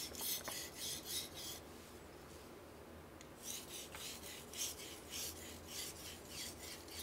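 Steel knife blade drawn in light, quick strokes across a wet Tsushima nagura natural whetstone: a faint, even scraping hiss at about three to four strokes a second, in two runs with a pause of about two seconds between them. These are water-only, light-pressure finishing passes that refine the edge.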